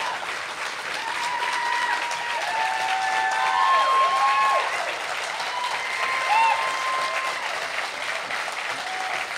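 Live audience applauding, with long whoops held over the clapping.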